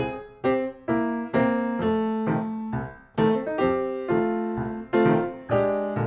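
Background piano music: a simple, light tune of struck notes and chords, each fading after it is played.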